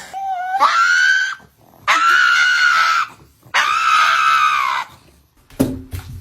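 An animal screaming: three long, high-pitched, steady squealing calls of about a second each, followed by a short, sudden noise near the end.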